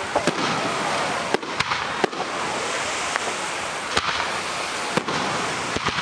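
Fireworks display: aerial shells bursting with sharp bangs at irregular intervals, about one a second, over a steady noisy background.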